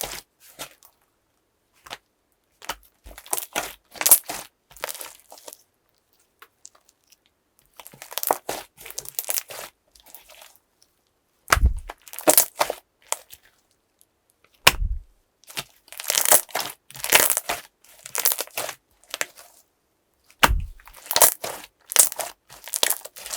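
Slime being squished and worked by hand: repeated runs of crackling, popping clicks from air bubbles in the slime, with short pauses between them. There are three brief dull thumps, about twelve, fifteen and twenty-one seconds in.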